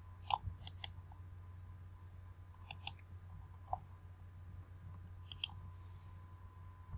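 Computer mouse clicking in short groups of two or three sharp clicks, spaced a few seconds apart, over a faint steady electrical hum.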